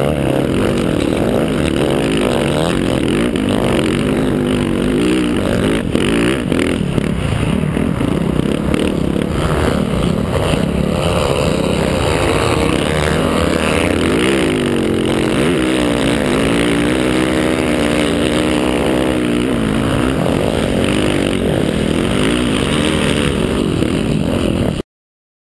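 Motocross bike engine revving and running, its pitch rising and falling repeatedly as the throttle is worked. It cuts off abruptly near the end.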